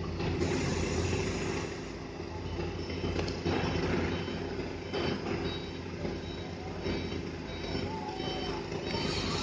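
Truck crane's diesel engine running steadily while lifting a precast concrete girder, with thin high squeals that come and go and grow stronger near the end.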